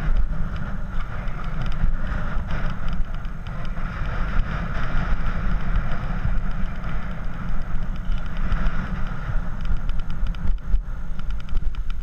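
Steady wind rumble and road noise from a bicycle ridden over paving, heard through a GoPro's microphone.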